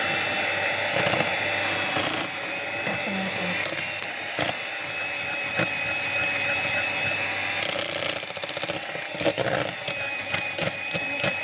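Electric hand mixer running steadily as it beats cake batter, its whir shifting a little twice. Several sharp clicks and knocks sound over it.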